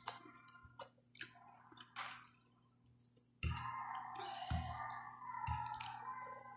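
Noodles being eaten: a slurp and chewing, with small clicks of a fork against the plate. About halfway through, a louder sound starts, with a steady tone and soft thumps about once a second.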